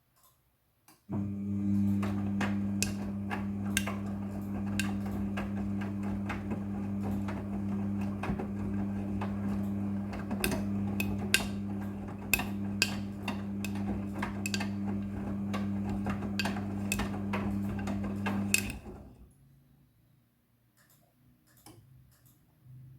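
Midea front-loading washing machine running: a steady low hum starts about a second in, with irregular clicks and knocks over it, and cuts out a few seconds before the end.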